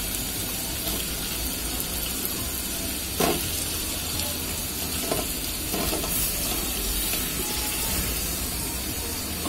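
Prawn curry sizzling steadily in a pot on the stove as chunks of bottle gourd are dropped in, with one sharp knock about three seconds in.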